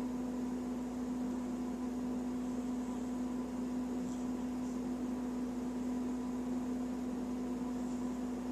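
A steady hum with a constant low tone over a background hiss, unchanging throughout.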